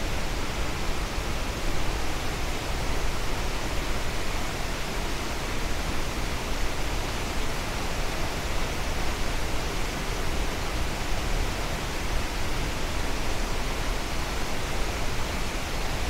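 Tortum Waterfall in spring flood, a steady rush of falling water, swollen by snowmelt and the overflow of Tortum Lake.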